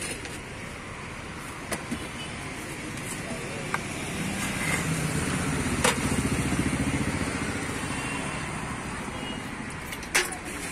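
Street traffic: a motor vehicle's engine passes, growing louder from about four seconds in and fading by about nine, with a few sharp clinks of steel serving utensils.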